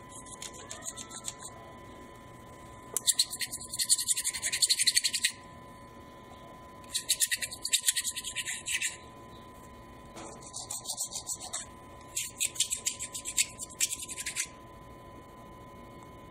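A narrow metal tool scraping carbon deposits off the crown of an aluminium forged piston, in five spells of quick back-and-forth strokes, the first one faint.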